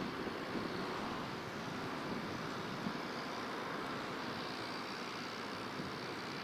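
Steady background noise of road traffic, with no distinct events.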